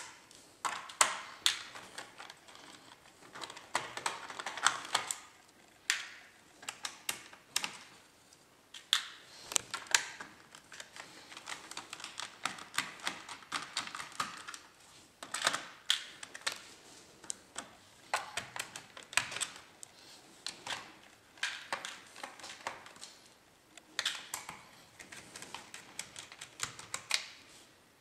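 Irregular clicks and taps of fingers handling the plastic underside of an HP Pavilion dv6000 laptop and its internal parts, coming in uneven clusters.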